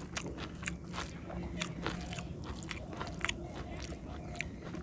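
Close-up chewing and mouth smacking while fingers mix rice on a metal plate: an irregular run of small clicks and squelches.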